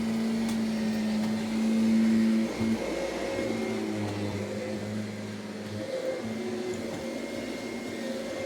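Upright vacuum cleaner running steadily, with a constant high whine and a lower motor hum that shifts in pitch now and then.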